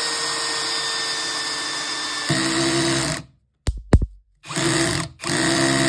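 Cordless brushless drill driver driving a screw with its clutch set to 15. The motor runs with a steady whine, its sound changes about two seconds in as the screw seats, and it stops. Two sharp knocks follow, then two more short bursts of the drill.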